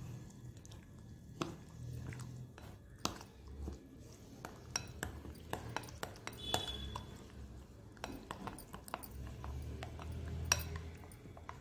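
A steel spoon stirring thick semolina-and-curd batter in a glass bowl, with frequent light, irregular clinks of the spoon against the glass.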